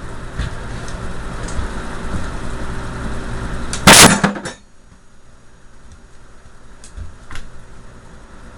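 A loud, short metallic crash about four seconds in, as scrap from a stripped starter armature is dropped, over a steady background noise, followed by a couple of lighter clicks.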